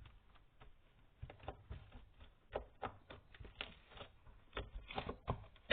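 Hands squeezing and stretching slime, with irregular small clicks and pops that come more often toward the end.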